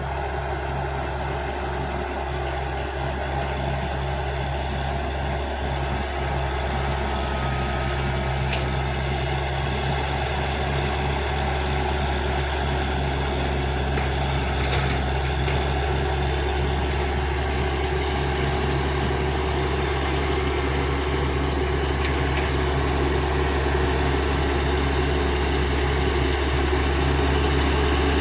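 Caterpillar D6G bulldozer's diesel engine running steadily with a deep, even drone, growing gradually louder.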